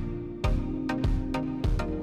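Background music with a steady beat, about one strong beat every 0.6 s, over sustained chords.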